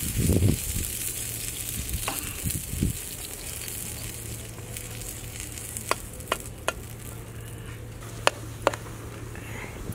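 A pancake sizzling on a flat griddle pan over a wood fire, with a spatula working under it. A dull knock comes near the start, and a few sharp clicks come later on.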